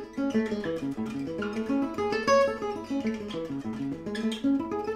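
Gypsy jazz guitar, an oval-soundhole manouche acoustic, playing an A major seventh arpeggio one picked note at a time, running up and down the neck several times at a steady pace.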